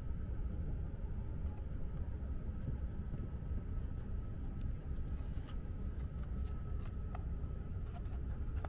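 Komachi Shinkansen (E6 series) train running, heard inside the passenger cabin as a steady low rumble with a faint steady high tone above it. A few light clicks come in the second half.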